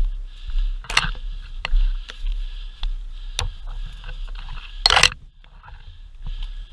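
Movement noise from a body-worn camera: rustling and scraping of gear and undergrowth over a low rumble, with several sharp clicks and one louder scrape about five seconds in.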